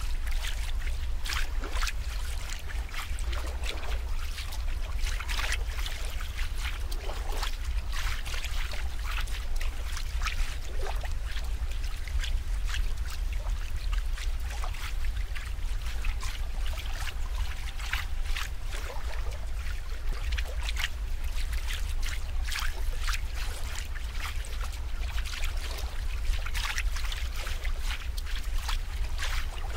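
Running water trickling and splashing irregularly over a steady low rumble.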